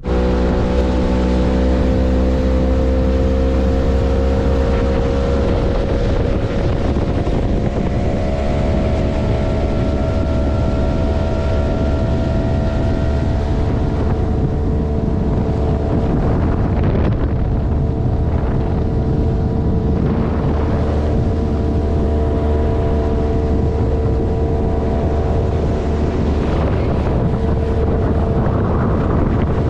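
Motorboat engine running steadily under way, its pitch creeping up over the first dozen seconds and then holding, with wind buffeting the microphone.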